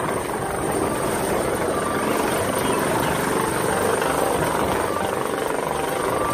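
Helicopter hovering just above a helipad: steady rotor and engine noise with a thin, high, steady whine over it.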